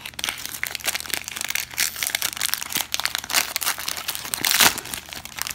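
Plastic and foil wrappers of 2018 Bowman baseball card packs crinkling as they are handled and pulled apart, an irregular run of crackles with the loudest burst about four and a half seconds in.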